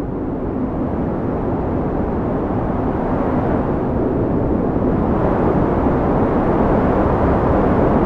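Wind blowing steadily, a low rushing noise that swells a little and grows brighter from about five seconds in.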